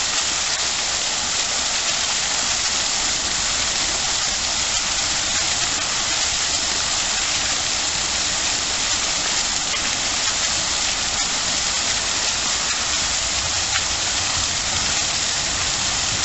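Fountain jets shooting up and splashing back into a shallow pool: a steady, even splashing hiss of falling water.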